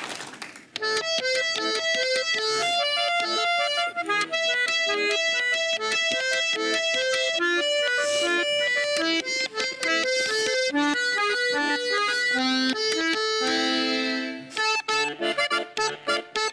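Button accordion playing a lively tune, starting about a second in: a quick melody of short notes over held chords. Near the end a chord is held for about a second, then short, choppy chords follow.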